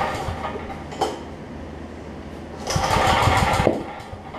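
A 9 hp Briggs & Stratton Vanguard generator engine being recoil pull-started. One pull ends as the sound opens, a short click comes about a second in, and a second pull about three seconds in turns the engine over for about a second with rapid low pulses, but it does not start.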